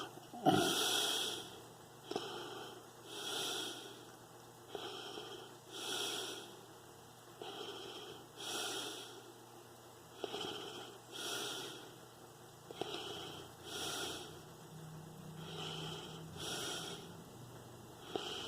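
A person breathing close to the microphone, a breath in and out about every two and a half seconds.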